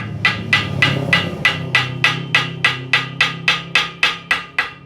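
Hammer striking metal in a fast even rhythm, about three blows a second, each with a short metallic ring, growing fainter toward the end, over a steady low hum.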